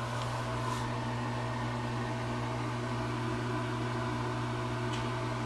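Steady low mechanical hum with a hiss over it, like a running fan or ventilation unit, with a couple of faint ticks.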